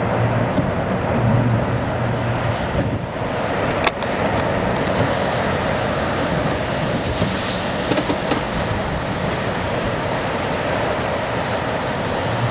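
Steady roar of strong wind from a tornado on the ground about half a mile away, with a sharp click about four seconds in.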